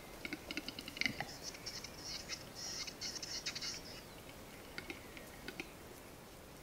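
Male western capercaillie's display song: dry clicks that speed up into a rattle, a louder pop about a second in, then a scratchy grinding phrase lasting about two and a half seconds. Slow single clicks start again near the end.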